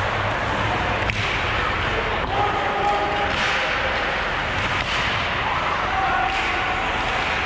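Ice hockey play in an arena: a steady hiss of skates on ice and crowd noise, broken by a few sharp clacks of sticks and puck, with distant shouts from players or spectators.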